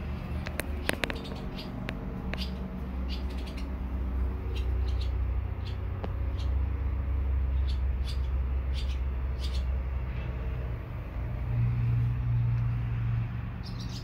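Barn swallow giving short, high chirps at its nest over a steady low outdoor rumble, with a deeper hum swelling about twelve seconds in.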